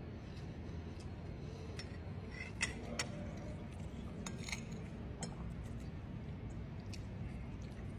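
Metal spoon and fork clinking and scraping against a ceramic bowl of fried rice: scattered light clinks, the sharpest about two and a half to three seconds in, over a low steady room hum.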